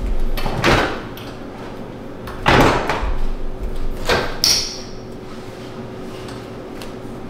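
Kitchen handling sounds: a few separate knocks and clunks, the loudest about two and a half seconds in, and the click and swing of a microwave door being pulled open about four seconds in.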